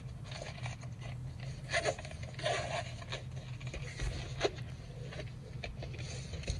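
Faint scraping and a few soft clicks of a stainless steel fidget slider being slid back and forth by hand, over a low steady hum.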